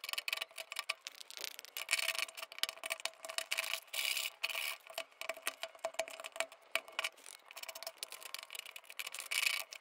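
A sharp blade scraping the inside of a halved calabash (tapara) shell in rapid, irregular rasping strokes, taking the last white pulp and veins off the hard inner wall.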